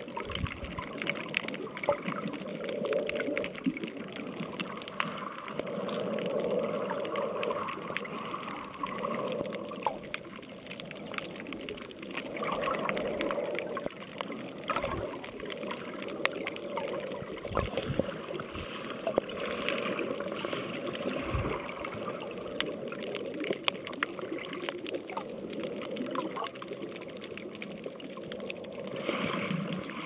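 Water sloshing and gurgling around a camera held underwater, swelling and ebbing every second or two, with scattered crackling clicks throughout.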